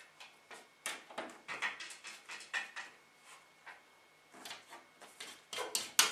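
Irregular scrabbling, scraping and light knocks of animals at the pet dormice's cage, in short bursts with pauses, loudest near the end.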